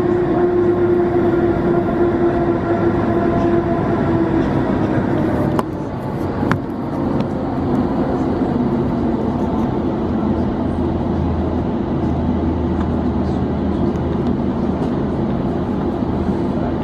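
Cabin noise of an Airbus A350 taxiing, heard from a window seat: steady engine noise from its Rolls-Royce Trent XWB engines. A held tone fades out about five seconds in with a couple of clicks, and a low hum takes over.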